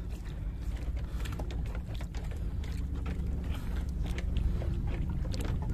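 Fishing longline being hauled aboard a small boat by hand: scattered small clicks, knocks and rustles of line and gear against the hull over a steady low rumble of the boat.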